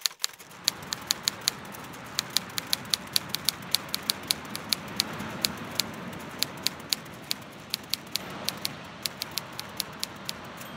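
Manual typewriter keys clacking in a quick, slightly uneven rhythm of about five strikes a second, over a steady wash of ocean surf.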